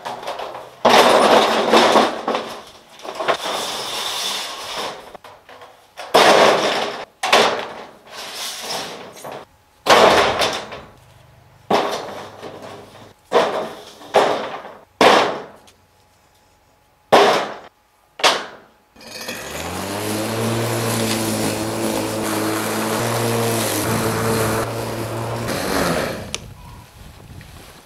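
Corrugated roofing sheets clattering and banging as they are flung down one after another onto a pile of sawn boards, a series of loud crashes. For the last third, an electric lawnmower's motor spins up and runs steadily.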